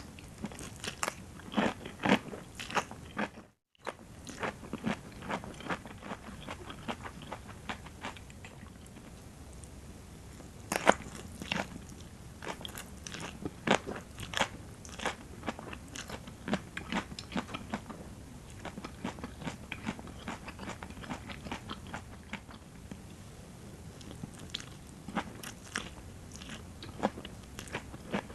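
Close-miked chewing of a rice noodle and vegetable salad: a steady run of sharp, crisp crunches and wet chewing, with a momentary cut to silence about three and a half seconds in.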